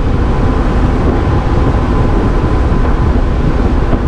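Wind buffeting the microphone on a ship's open deck at sea: a loud, steady, rumbling rush that never lets up.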